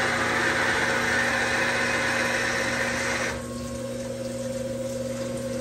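CNC lathe running a drilling cycle: a twist drill cutting into the chamber end of a spinning rifle barrel blank under flood coolant, over the machine's steady hum. The cutting and coolant noise drops away about three seconds in, leaving only the hum.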